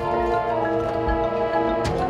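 High school marching band playing held chords, with one sharp percussion hit near the end.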